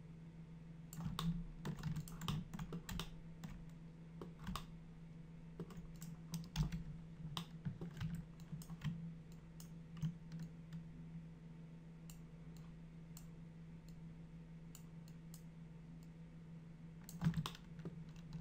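Scattered clicks of a computer keyboard and mouse as a 3D model is edited, in irregular clusters with a quieter stretch in the middle, over a steady low hum.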